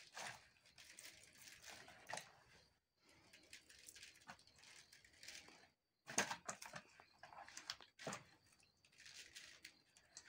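Faint gritty pattering and scraping of salt grains falling into a plastic basin and being rubbed into a raw fish by hand, in irregular bursts with a few brief breaks. The loudest scrape comes about six seconds in.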